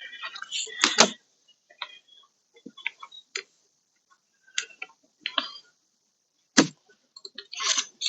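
Scattered clicks, knocks and rattles of plastic trim clips and hand tools being worked loose from a car door panel, with one sharper knock past the middle.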